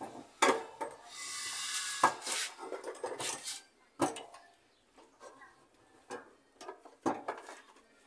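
Metal parts of a top-load washing machine's transmission being handled and fitted by hand, around a freshly greased tube that is being pushed into place. A scraping rub comes about a second in, and sharp clinks and knocks come about every second or two, five in all.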